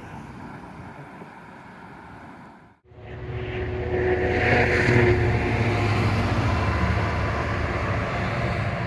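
Diesel locomotive heading a container freight train, its engine running hard under power as it comes up and passes close by, with a steady deep rumble and a few held engine tones. A quieter background cuts off abruptly about three seconds in, just before the locomotive is heard.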